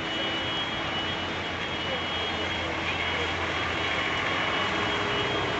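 Minibus engine running as the bus drives through deep floodwater, its low drone loudest about midway as it passes, over a steady wash of water noise.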